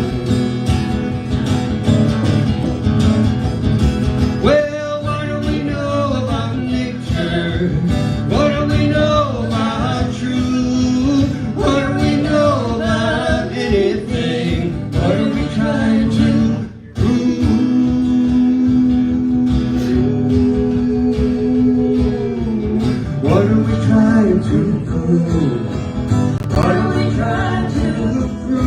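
Live acoustic country-folk music: guitar accompaniment under a lead melody that slides and bends in pitch, with a brief drop-out a little past halfway.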